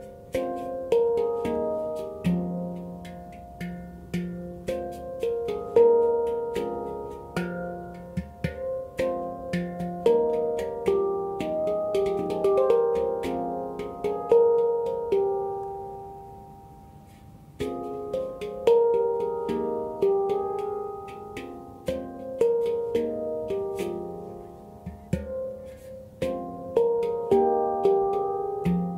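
Handpan tuned to F minor, played by hand: a flowing run of struck steel notes, each ringing and decaying. The notes are left to die away about 15 seconds in, and the playing resumes about two seconds later.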